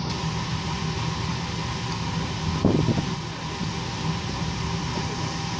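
Steady hum of a river passenger ship's engines and onboard machinery under way, with a brief louder sound about two and a half seconds in.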